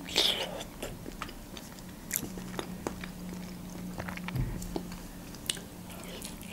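Close-up wet chewing and biting of Georgian khinkali dumplings, with many small smacking clicks and a louder bite just after the start. A faint steady low hum sits underneath.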